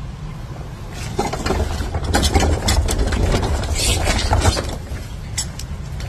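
Large wheeled commercial waste bin pulled across tarmac on its castors: a rattling rumble with many knocks. It starts about a second in and dies away after about four seconds.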